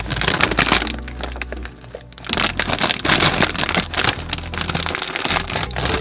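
Background music with loud, dense crackling in two stretches, breaking off briefly about two seconds in.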